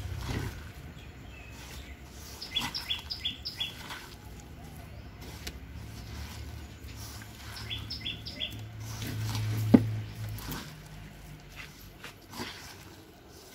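Hands squeezing and mixing a grated-coconut mallum in a clay pot, a soft rustling and crunching. A bird chirps twice, each a quick run of about four chirps, and a low hum in the background swells and fades near the end.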